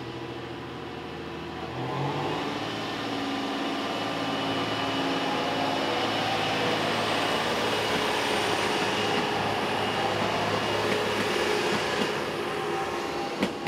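JR Hokkaido H100 series diesel-electric railcar pulling away from a station. Its engine runs up, louder from about two seconds in, then engine and wheel-on-rail noise carry on steadily as the train passes. There is a short click near the end.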